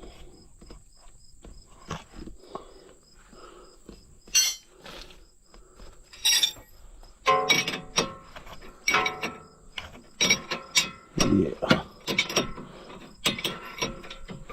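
Metal tools clinking and knocking on steel steering parts as a tie rod end is fitted to a truck's spindle. The knocks come sparsely at first and in quick clusters from about halfway, some with a short ring. A faint high chirp repeats steadily about three times a second throughout.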